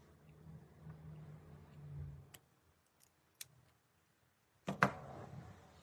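Faint low hum for the first two seconds, then a light click and, nearly five seconds in, a sharper click with a short rattling tail, like small hard parts being handled.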